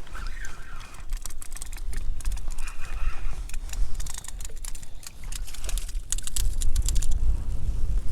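Wind rumbling on the microphone under a run of irregular sharp clicks and taps, thickest in the middle, typical of fishing gear being handled in a kayak.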